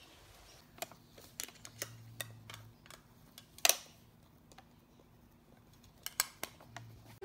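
Light, irregular clicks and taps of paper and hands moving over a workbook's pages, with one sharper tap about three and a half seconds in.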